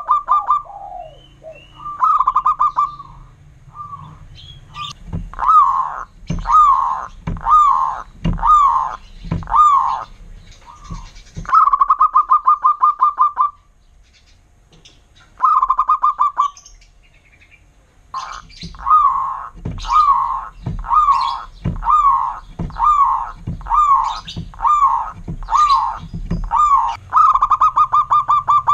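Zebra dove (perkutut) singing. Fast rattling trilled coos alternate with runs of separate rising-and-falling coo notes, a little more than one a second, with short pauses between phrases.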